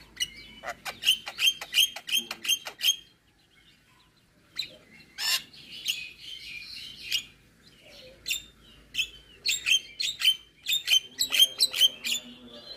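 Javan myna singing: a quick run of sharp clicking notes, about five a second, then a short pause, a single loud call, and more varied chattering and sharp notes.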